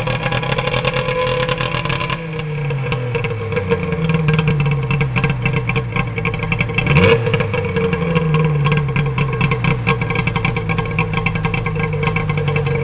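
Polaris Indy XLT 600's three-cylinder two-stroke engine running unevenly on its first run after a top-end rebuild: the idle speed sags, then wanders up and down, with a quick blip of the throttle about seven seconds in.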